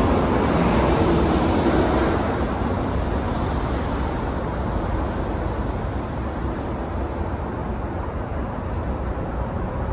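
Steady outdoor rumble of urban traffic, a continuous low roar with hiss, which eases a little after about two seconds.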